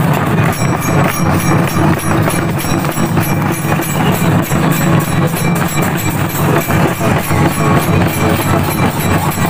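Folk percussion played live: small brass hand cymbals and a larger flat cymbal clashing in a fast, even rhythm over drums.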